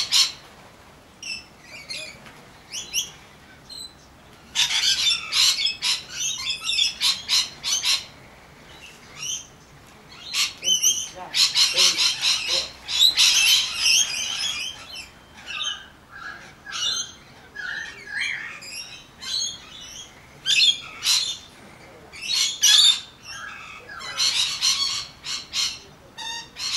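Magpies chattering: repeated harsh, rattling runs of rapid calls, with a few shorter, more tonal notes in between.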